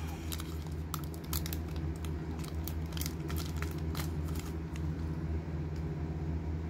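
A Panini Prizm foil trading-card pack being torn and peeled open by hand: a quick run of sharp foil crackles that thins out after about four seconds, over a steady low hum.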